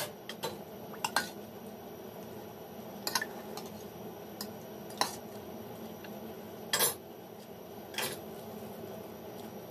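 Metal ladle clinking and scraping against a large stainless steel pot while ube mixture is scooped out, a scattering of short sharp clinks at uneven moments, one longer scrape about seven seconds in.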